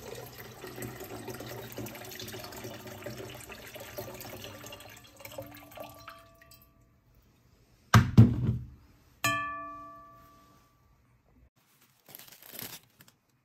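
Water poured from an electric kettle into a glass bowl, thinning to a trickle and a few drips that make the glass ring faintly. About eight seconds in comes a loud knock, then a clink that sets the glass bowl ringing with a clear tone fading over a second or so.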